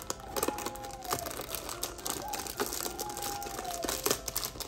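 Clear plastic toy wrapper crinkling and crackling as it is pulled out of a cardboard pack and handled, a steady run of small crackles.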